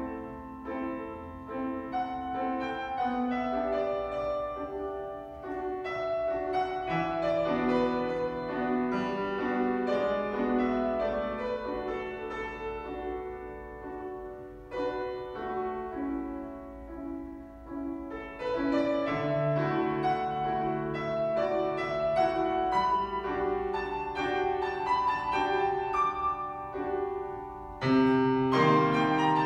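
Grand piano played solo, a classical piece with continuous runs of notes. It grows quieter about halfway through, and a loud chord comes in near the end.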